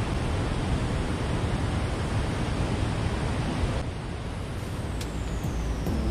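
Steady rushing noise of water pouring through a river dam's gates, with wind buffeting the microphone.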